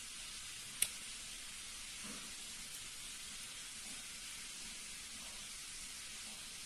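Steady faint hiss with a single sharp metallic click a little under a second in, from a Leatherman Surge multitool being handled as its blades and plier jaws are moved.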